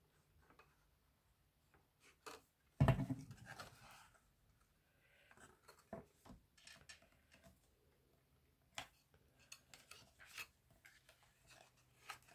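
White card being handled and folded by hand on a cutting mat: light paper rustling and small taps, with one louder thump a little under three seconds in as something is set down on the table.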